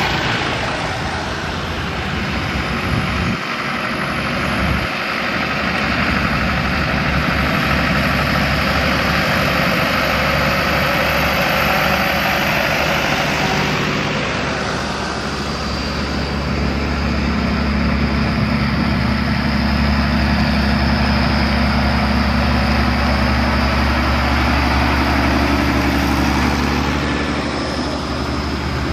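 Diesel engines of farm tractors running as they drive past one after another. About halfway in, a deeper engine hum grows stronger as the next tractor comes closer.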